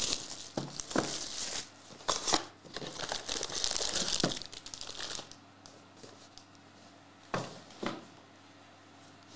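A Panini Prizm football hobby box being torn open and its foil card packs pulled out, crinkling and tearing for about five seconds. Then two soft knocks near the end.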